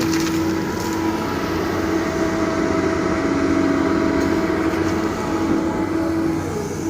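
Doosan DX225LCA excavator running with its diesel engine under load, a steady whine holding over the engine rumble.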